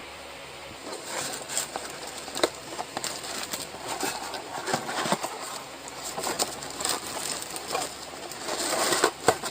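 Packaging being opened by hand: irregular rustling, crinkling and clicking of the box and its wrapping as the chin mount is taken out, busiest near the end.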